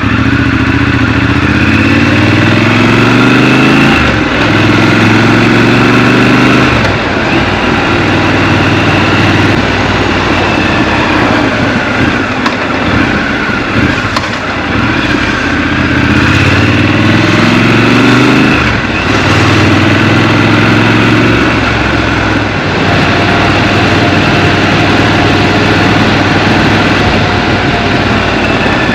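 Scrambler motorcycle engine accelerating twice, its pitch climbing and dropping back at each upshift, with steadier running between the pulls.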